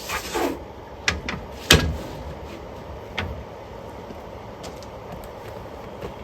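Truck-bed topper rails and clamps being handled: a short scrape, then a few knocks and clanks, the loudest just before two seconds in, with quieter handling after.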